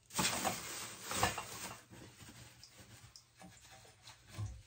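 Cut ends of a copper water pipe being scrubbed clean by hand with an abrasive. There are two rasping bouts of scrubbing in the first two seconds, then lighter rubbing, and a dull knock near the end.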